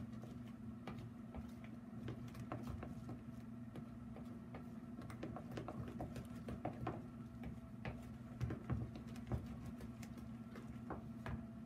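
Gloved hands mixing and squeezing a thick bread batter in a mixing bowl: irregular soft clicks and squelches. A steady low hum runs underneath.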